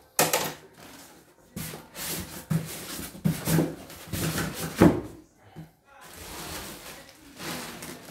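Packing being handled: a styrofoam box lid scraped and pulled off, then plastic wrapping rustling. A sharp knock comes right at the start and the loudest scrape near five seconds in.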